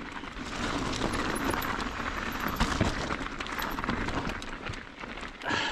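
Mountain bike rolling over a rocky dirt trail: tyres crunching on gravel and rock, with a steady run of rattles and clicks from the bike.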